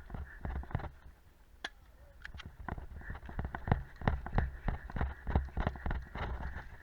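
Running footsteps thudding on the ground, about three strides a second, stopping briefly about a second in and then resuming. A couple of sharp clicks fall in the pause.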